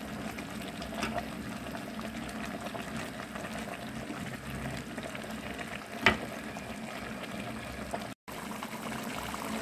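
Chicken stew simmering and bubbling in an aluminium pot while it is stirred with a wooden spoon, with one sharp knock about six seconds in as the spoon hits the pot.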